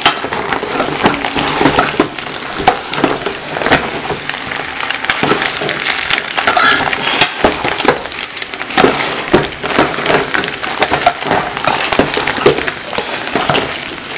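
A metal spoon stirring and tossing sauced fettuccine in a large stainless steel pot, with many short scrapes and knocks of the spoon against the pot.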